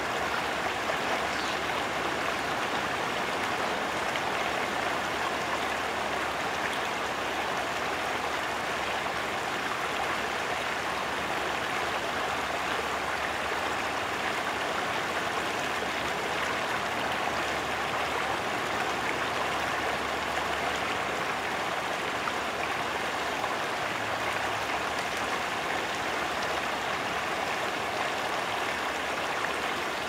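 Stream water flowing steadily over rocks, an even rushing wash with no breaks.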